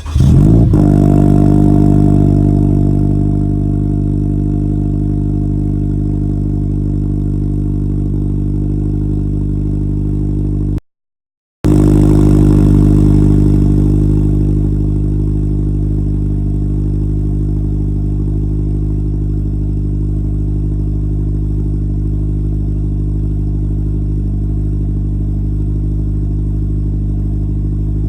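Toyota GT86's 2.0-litre flat-four boxer engine, breathing through a Megan Racing aftermarket exhaust, catching on a cold start, flaring and then settling within a few seconds into a steady high cold idle. About 11 seconds in the sound cuts out briefly, then returns loud and settles again into the same steady idle.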